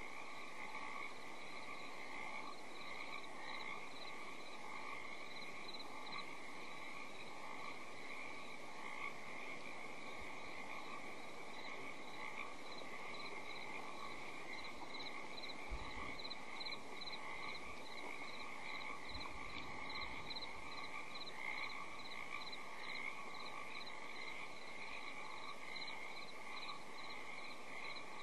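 A steady chorus of frogs calling, the higher notes pulsing evenly at about two to three a second.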